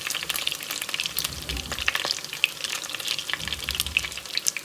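Chicken pieces frying in their own rendered fat, a steady sizzle full of small sharp pops and crackles.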